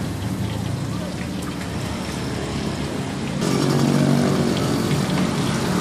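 Steady crackling hiss of oil deep-frying in a large wok at a street food stall, over a low hum of street traffic. About three and a half seconds in, the sound changes abruptly and grows louder, with more engine hum.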